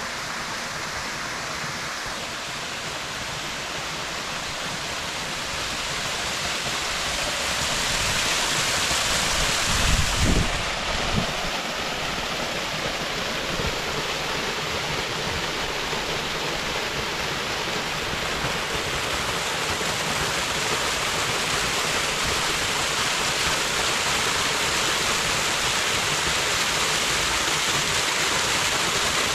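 Steady rushing noise of flowing water, growing slowly louder, with a couple of short low bumps about ten seconds in.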